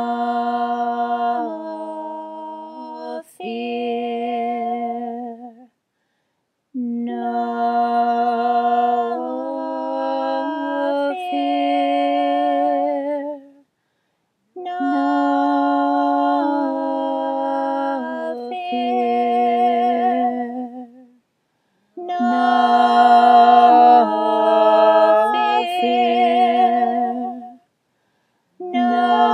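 Women's voices singing a slow a cappella chant, in four drawn-out phrases separated by short pauses, with a fifth phrase beginning near the end.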